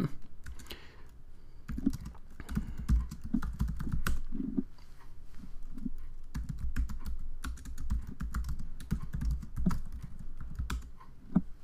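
Typing on a computer keyboard: irregular runs of key clicks as a terminal command is typed and, after a typo, typed again.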